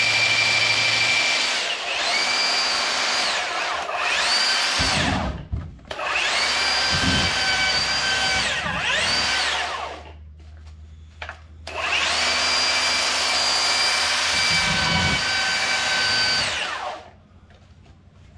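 Ryobi One+ 18V brushless belt sander running with no load in three runs of several seconds, a high motor-and-belt whine. Its speed dips and recovers a few times before it winds down near the end. The belt is being run to check its tracking after being re-centred.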